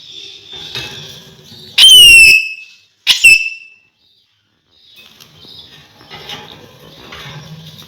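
Alexandrine parakeet whistling twice, loudly: one whistle about two seconds in that shoots up sharply and then falls to a held note, and a shorter one about a second later.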